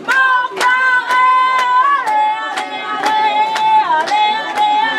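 Music: a high melody of long held notes over a steady beat of about two strikes a second.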